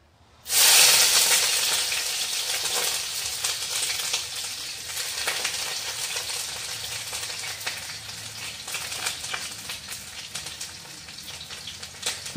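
Chopped vegetables going into hot oil in a kadai: a sudden loud sizzle about half a second in, then steady crackling frying that slowly dies down.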